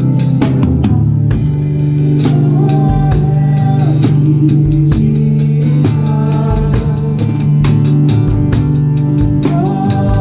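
Live band playing a worship song: a drum kit keeps a steady beat with regular cymbal and drum strikes over sustained bass and guitar.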